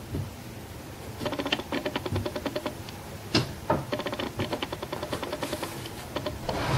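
Large poster-board sheets being handled and set down: two sharp knocks about three and a half seconds in, over a fast, even ticking with a faint hum.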